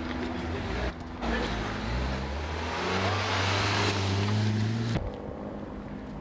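A motor vehicle driving past, its engine note rising as it speeds up over a growing hiss of tyre and road noise. The sound cuts off suddenly about five seconds in.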